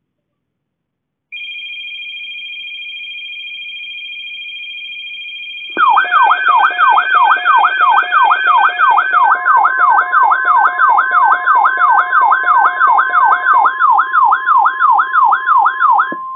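Weather alert radio receivers sounding their alarms: a steady high two-tone alert begins about a second in, then about six seconds in a much louder siren-like tone starts sweeping up and down about three times a second over a steady tone, and both cut off just before the end.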